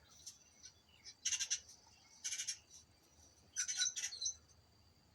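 Small birds chirping in three quick bursts of rapid high notes, played through a TV's speakers.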